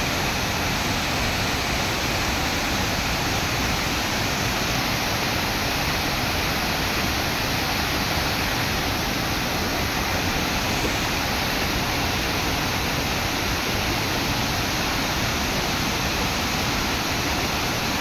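Water rushing and splashing steadily as it cascades over rock steps into a stream.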